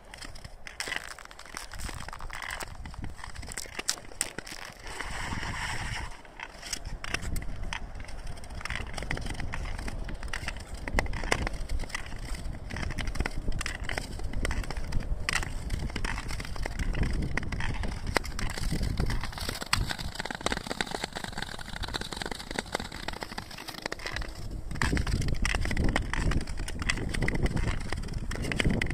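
Ice skates gliding over thin, clear black ice on a frozen river: a steady scraping of the blades, dense with sharp clicks and cracks from the ice.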